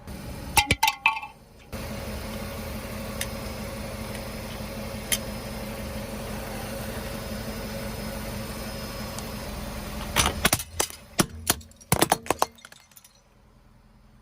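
Car running with a steady low hum while its tyres crush brittle objects: a few sharp cracks about half a second in, then a quick run of cracking and breaking sounds near the end.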